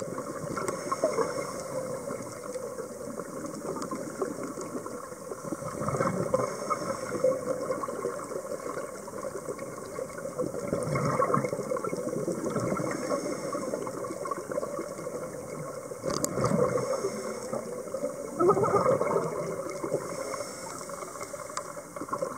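Scuba diver breathing through a regulator underwater: exhaled bubbles gurgle and rush in swells about every five seconds, with a faint hiss of inhalation between them.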